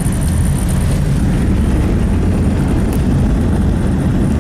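Steady low rumble of a vehicle being driven, heard from inside the cab: engine and road noise with no change.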